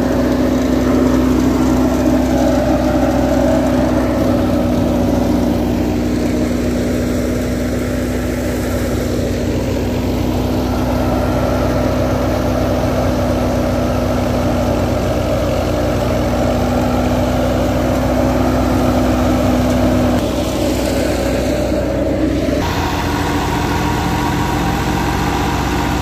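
A tractor's diesel engine and the wheat thresher it drives run together at a steady working speed, a continuous mechanical hum with a strong steady tone. About twenty seconds in, the tone drops away and the running sound changes character.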